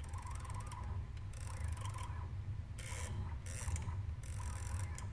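CNC lathe axis drive being jogged in short moves. The motor whine and hiss start and stop about six times, over a steady low machine hum.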